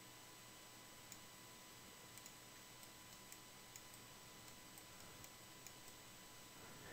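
Near silence: faint room tone with a steady electrical hum and a scatter of faint, irregular clicks from a computer mouse.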